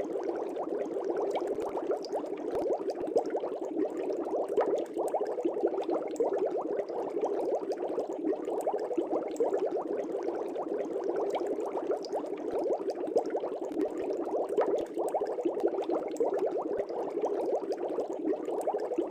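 Air bubbles streaming through aquarium water: a steady, dense bubbling that goes on without a pause.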